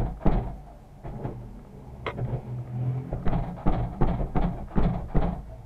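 A door being forced open: a run of thumps and knocks as it is shoved and struck, about ten in all, coming faster in the second half, with one sharper click about two seconds in.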